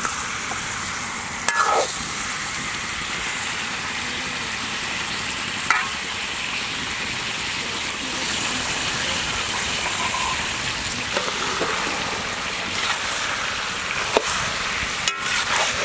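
Chicken pieces frying in oil in a large iron kadai, a steady sizzle throughout, with a few short knocks and scrapes of a steel ladle against the pan.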